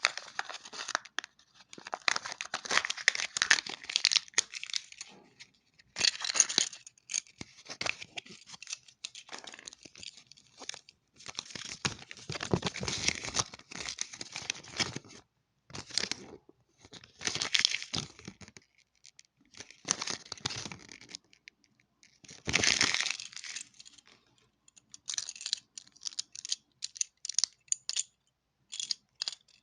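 Toy packaging being torn open and crinkled by hand, in repeated bursts of tearing and rustling with short pauses between them.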